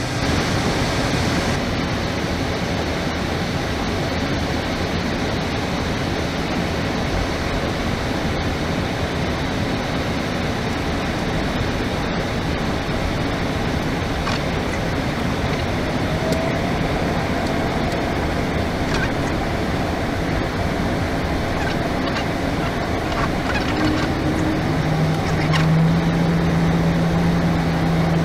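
Steady, loud cockpit noise of an Airbus A320 in flight: the rush of airflow mixed with engine and air-conditioning noise. About 25 seconds in, a steady low hum joins it.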